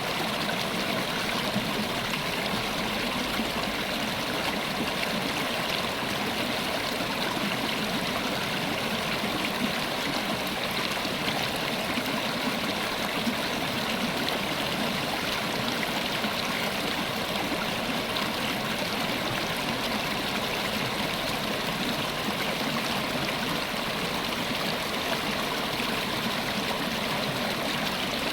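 River water running over rocks in a steady rush with fine gurgling.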